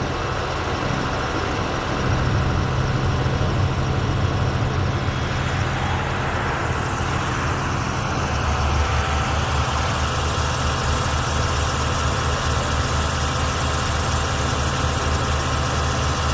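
A vehicle engine idling steadily, a deep low hum under a constant hiss. About halfway through, the low rumble gets stronger and takes on a faint throb.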